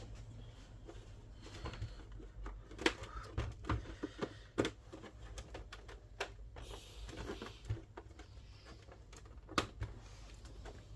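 Irregular small clicks and taps of a screwdriver and small screws being worked out of a PlayStation 3's casing and set down, with a brief rustle of handling partway through.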